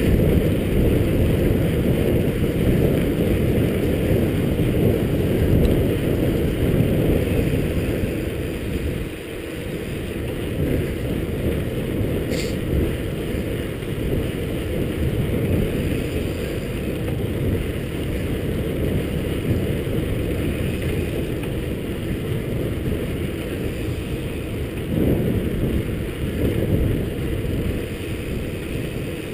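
Steady low rumble of wind on the microphone and tyre noise from a mountain bike rolling along pavement, easing a little about nine seconds in, with one sharp tick about twelve seconds in.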